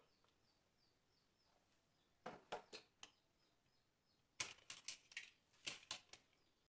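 Light knocks and clicks of things being handled and set down on a wall shelf, among them a flower pot: a short cluster about two seconds in, then a longer run of sharper clicks from about four and a half seconds. The rest is near silence.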